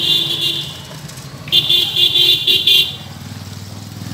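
Vehicle horn honking on the road nearby: one steady honk ending about half a second in, then a quick run of about five short honks, over the low rumble of passing motor traffic.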